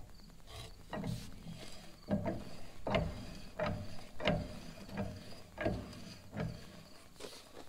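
A thread-cutting tap being turned by hand with a large wrench in a Farmall H tractor's cast-iron manifold, cutting new threads. It gives a series of short, sharp clicks and creaks, roughly one every two-thirds of a second, as the tap bites into the metal.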